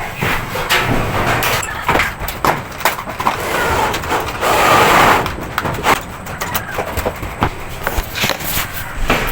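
Work noise from pulling electrical wire through PVC conduit: irregular clicks and knocks, with a louder stretch of scraping and rustling about halfway through.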